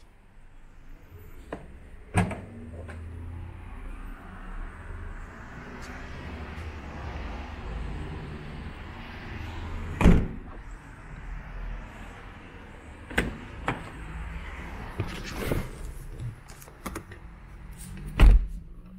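Car doors and trunk lid on a 2017 Ford Fusion shutting: one loud thump about ten seconds in and another near the end, with lighter clicks and knocks between over a steady low hum.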